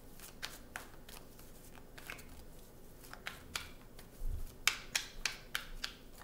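A deck of tarot cards being shuffled by hand: a run of short, soft flicks and slaps of cards against each other, busiest in the second half. A single dull low bump comes a little past halfway.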